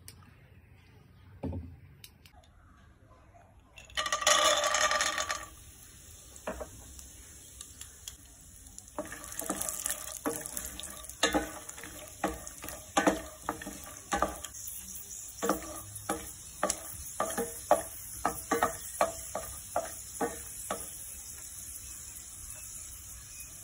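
Peanuts frying in hot oil in a nonstick pan. A short loud sizzle comes about four seconds in, then a steady sizzle runs on with many quick knocks and scrapes as a wooden spatula stirs them against the pan.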